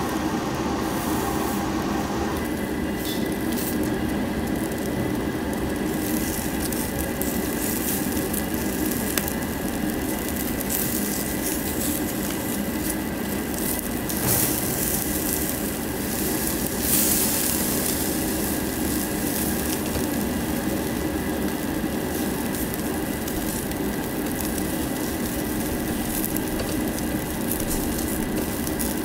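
Pork belly sizzling on a wire grill over charcoal, with a steady mechanical hum underneath.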